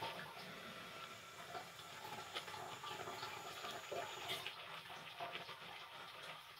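Faint water sounds in a stainless steel kitchen sink: soft trickling and dripping.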